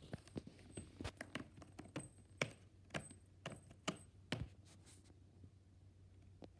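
A cat sneezing in a quick run of short, sharp sneezes, the strongest about two a second, stopping about five seconds in.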